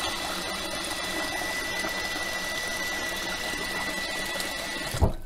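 Kitchen tap running a steady stream of water into a stainless steel pot of beans, a continuous rush with a faint steady high tone. The flow cuts off near the end with a short thump.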